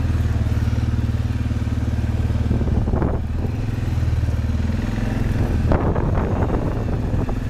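ATV engine running steadily while the machine moves along, with short rattling clatters about three seconds in and again around six seconds.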